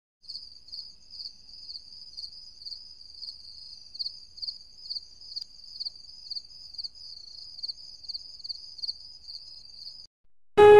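Cricket chirping steadily, about two high chirps a second, which stop about ten seconds in; guitar music begins just at the end.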